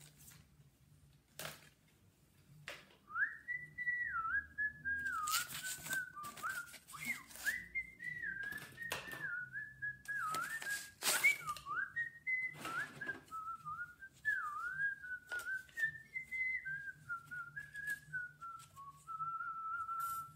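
A person whistling a wandering tune, starting about three seconds in and running on without a break. Short rustles and knocks of paper props being handled on the stage come through along with it.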